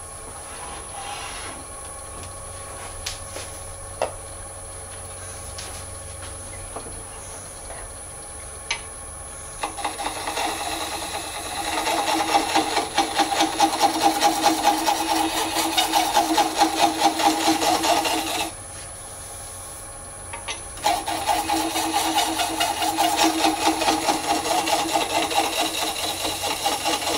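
A lathe runs with a steady hum while it spins a cast Alumilite resin globe. About ten seconds in, a turning tool starts cutting the spinning resin with a loud, rough scraping. The scraping stops for a couple of seconds about two-thirds of the way through, then starts again.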